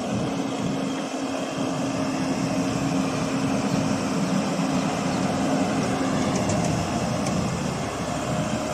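Diesel engine of a tipper truck running steadily as the truck drives slowly, with a constant low hum.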